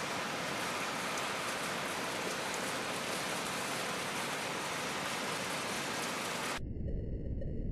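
Heavy rain falling during a thunderstorm: a steady, even hiss. About six and a half seconds in it cuts off suddenly and a low rumble takes over.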